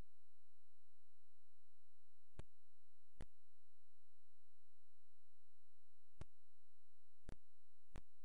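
A steady electronic tone, a high whine over a low hum, holding at one level, broken by five short clicks: two a little under a second apart a couple of seconds in, then three over the last two seconds.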